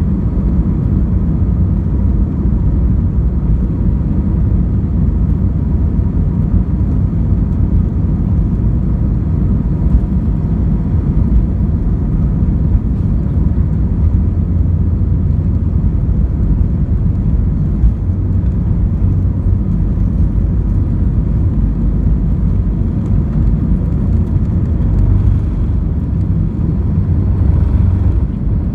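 Airbus A320 jet engines at takeoff thrust, with the rumble of the takeoff roll, heard inside the cabin over the wing. It is a loud, steady, deep rumble with a faint steady whine above it.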